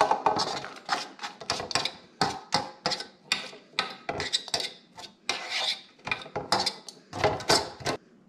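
A utensil scraping roasted butternut squash off a metal sheet pan into a pan, in repeated uneven strokes, a couple or so a second, that stop shortly before the end.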